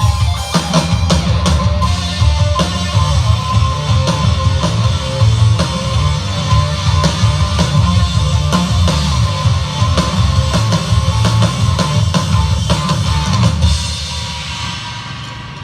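Rock band playing an instrumental passage: drum kit and electric guitar, loud and driving, dying away over the last couple of seconds.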